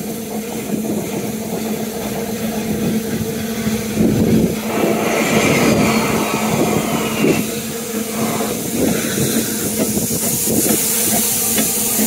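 Double Fairlie steam locomotive David Lloyd George pulling away slowly, with a steady low rumble and repeated beats from its working. A strong steam hiss sets in about five seconds in and returns near the end.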